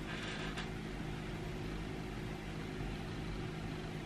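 Steady low mechanical hum made of several steady low tones, even in level throughout.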